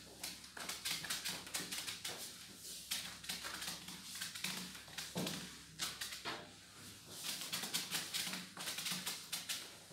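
Whiteboard eraser scrubbing across a whiteboard in repeated back-and-forth strokes: a dry, scratchy rubbing that swells with each stroke, about once a second.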